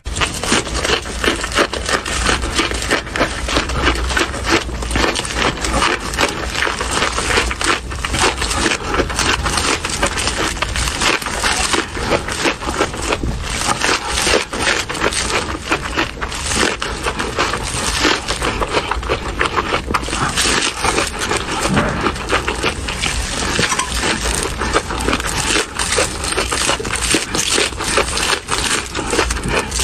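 Crunchy chewing of raw green onions rolled in a vegetable leaf with soybean paste: a dense, steady run of crisp crackles and snaps.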